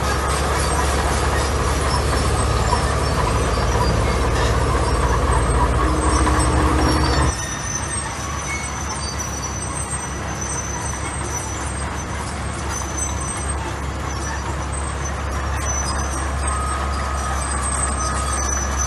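Heavy diesel construction machinery running with a steady low drone. About seven seconds in the sound changes abruptly and continues a little quieter, with thin high squeaks over it.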